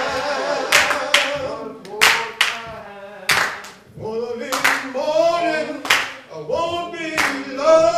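A worship song sung over a microphone, with hands clapping along in time. The sharp claps are the loudest sounds, falling in pairs about every second or two over the sustained sung notes.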